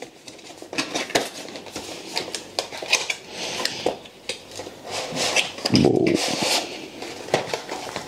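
Cardboard packaging handled and opened by hand: irregular scrapes, rustles and clicks as the box flap is opened and the inner cardboard tray slides out.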